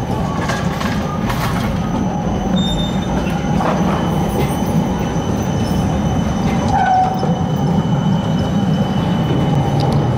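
Low-floor articulated electric tram rolling past close by on curved street track: a steady low rumble of wheels on rail, with a thin, steady high-pitched whine above it and a few brief squeaks.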